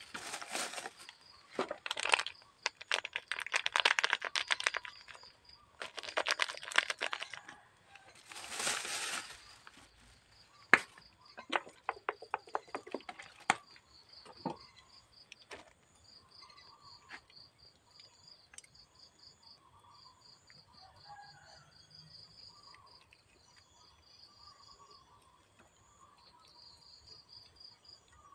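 Rustling, shaking bursts in the first ten seconds as seasoning is added to a pot of sliced roasted Oroxylum pods, then a few sharp clicks. After that, insects chirp steadily in rapid, high, pulsed trills.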